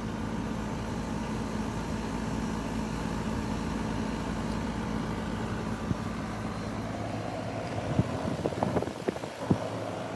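Residential air-conditioning condensing unit running in cooling mode: a steady hum from the compressor and condenser fan. A few sharp knocks come near the end.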